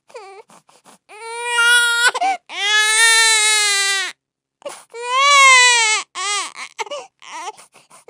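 Baby crying: three long, high-pitched cries with short breaks for breath between them, then shorter broken cries near the end.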